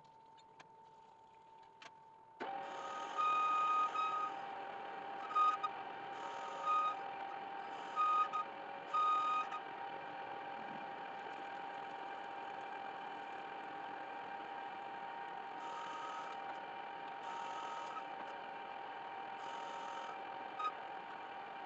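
An electric workshop machine switches on about two seconds in and runs steadily, with repeated short, louder bursts of higher-pitched noise over its hum.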